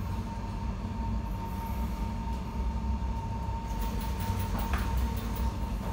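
KVB Stadtbahn tram running between stops, heard from inside the car: a steady low rumble with a constant high hum. About two-thirds of the way in, a quick run of clicks and rattles joins it.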